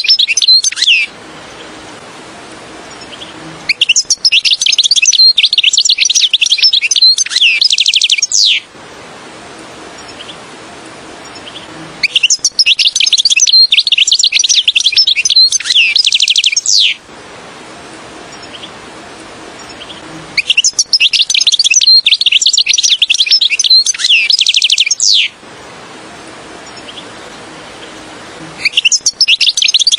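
European goldfinch song: bouts of rapid, high twittering and trilling, each about four to five seconds long, repeating every eight seconds or so with short pauses of faint hiss between. It is a lure call for drawing in wild goldfinches.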